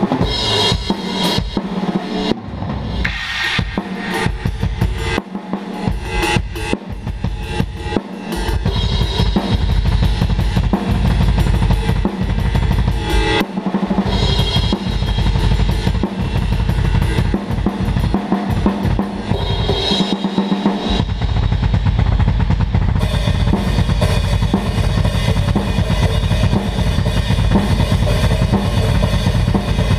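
Full acoustic drum kit played as a groove: bass drum, snare and cymbals. It becomes busier and louder about eight seconds in, with the bass drum driving steadily, and a cymbal wash builds through the last few seconds.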